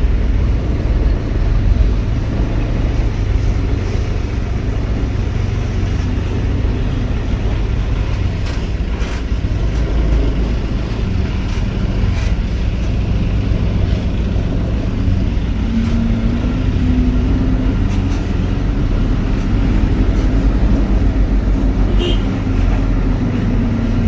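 Heavy diesel engine running steadily with a deep rumble, joined by a low drone in the last third.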